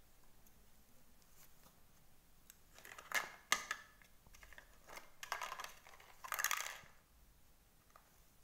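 A small metal manicure tool scratching and clicking at a baby monkey's fingernails, in three short scratchy bursts with a couple of sharp clicks about three seconds in.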